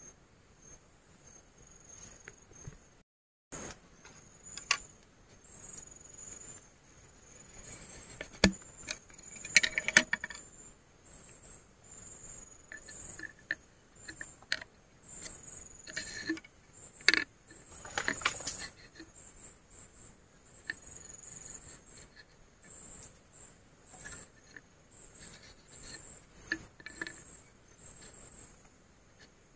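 Night insects, crickets, chirping steadily in high pulsed trills. Scattered sharp clicks and brief rustling break in about eight to ten seconds in and again around sixteen to eighteen seconds, louder than the chirping.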